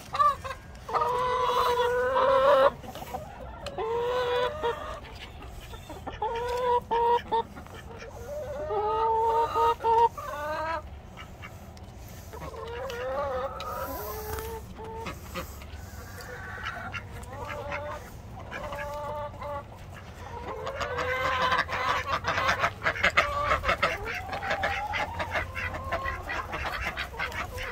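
Backyard hens clucking, with repeated drawn-out calls of about a second each and a busier stretch of clucking about two-thirds of the way through.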